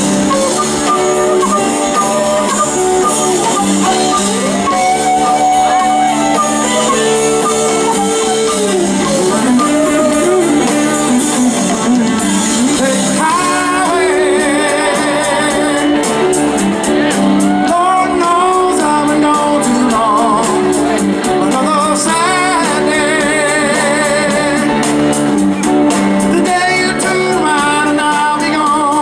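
Southern rock band playing live: electric guitars, bass and drums, with a man singing the lead vocal.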